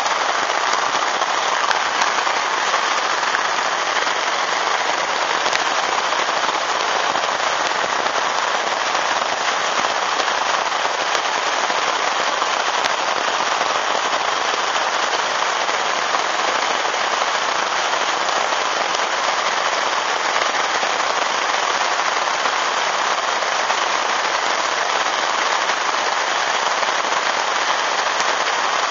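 Heavy rain pouring onto open water: a dense, steady patter of drops that never lets up.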